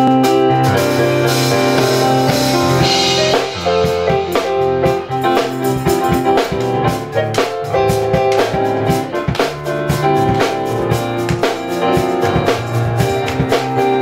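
Live gospel music: held keyboard chords, with a drum kit coming in about three and a half seconds in and keeping a steady beat.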